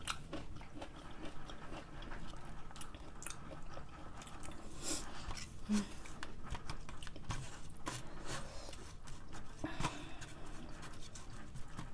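Biting and chewing crunchy pickles: an irregular run of small crunches, with a few louder bites scattered through.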